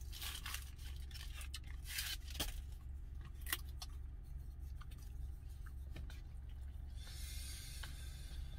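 Small handling sounds of a paper instant-noodle cup and wooden disposable chopsticks: a few sharp clicks and scrapes, then a soft rustling hiss from about seven seconds in as the noodles are stirred. A low steady hum runs underneath.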